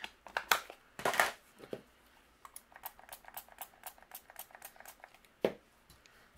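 Light clicks and taps of hands handling a clear acrylic stamp block and clear stamp on a craft mat: a brief rustle, then a run of fine ticks about five a second, and one sharper knock about five and a half seconds in as the block is set down.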